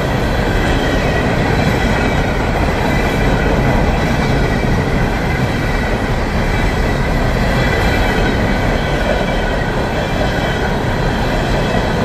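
Freight train cars rolling past at very close range: a loud, steady rumble of steel wheels on the rails, with high ringing tones from the wheels held over it.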